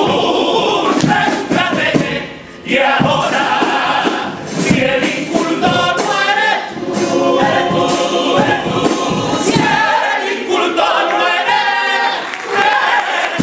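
Carnival comparsa chorus singing the closing lines of a pasodoble in several voices, with a brief breath break about two and a half seconds in.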